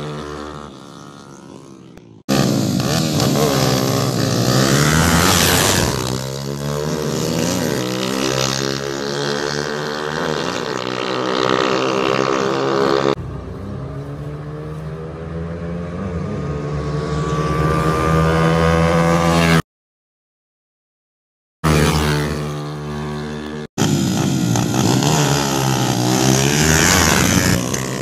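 Two tuned single-cylinder four-stroke underbone motorcycles drag racing, a Honda XRM125 with a 57 mm bore and racing cam against a 56 mm big-valve bike, their engines revving hard with the pitch climbing and dropping back at each gear change. The sound jumps abruptly between runs: it fades away at the start, and there is a gap of silence of about two seconds some twenty seconds in.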